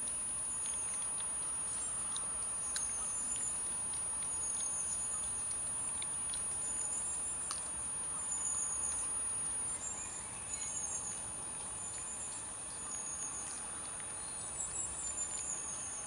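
Eurasian badger cubs rooting and foraging in loose soil, with scattered small clicks and patter, while a small bird chirps in short high phrases about once a second. A steady hiss and a constant high whine run underneath.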